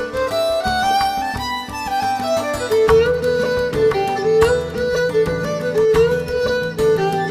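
Instrumental background music: a stepping melody over a steady beat, with a fuller bass part coming in about three seconds in.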